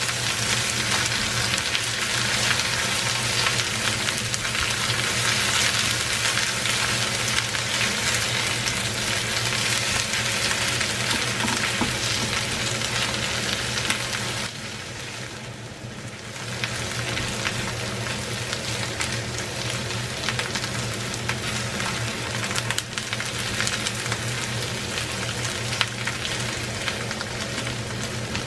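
Smoked duck, onion and kimchi sizzling as they stir-fry in a hot frying pan, with a silicone spatula stirring and scraping through them. The sizzle eases off briefly about halfway through, then picks back up. A faint steady low hum runs underneath.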